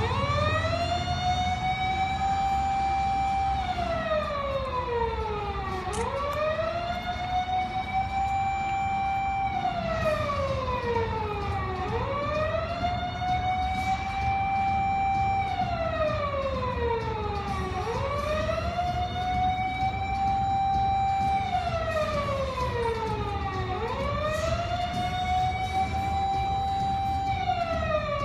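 Police-style vehicle siren wailing in slow cycles: each cycle rises quickly, holds a steady tone for about three seconds, then glides down, repeating about every six seconds, over a low engine rumble.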